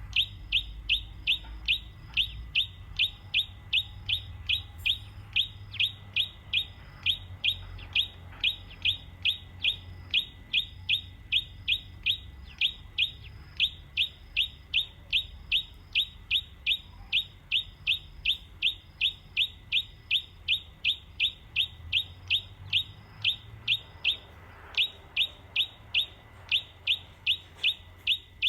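A bird chirping over and over, one short sharp note about two to three times a second, in long even runs broken by a few brief pauses. A faint low rumble sits underneath.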